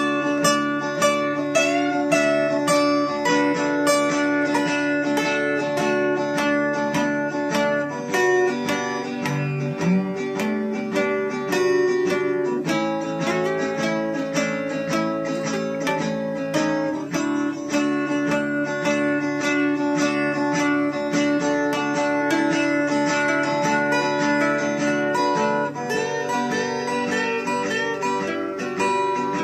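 Acoustic guitar played without singing: steady, even strumming of chords with single melody notes picked over them.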